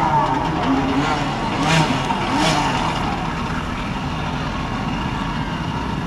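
A pack of racing jet skis revving their engines hard together on the start line, their pitch wavering up and down, with water thrown out by their jets.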